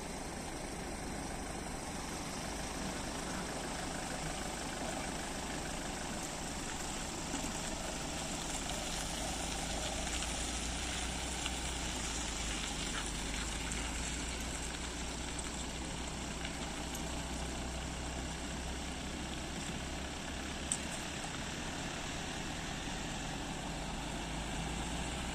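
An ambulance van's engine idling steadily, with a low rumble under a constant hiss of outdoor noise.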